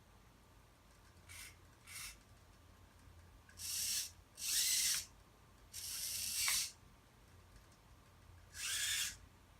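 Servo motors in a 3D-printed robot hand and wrist whirring through six separate movements: two short ones, then longer ones of about half a second to a second, some with a whine that bends in pitch.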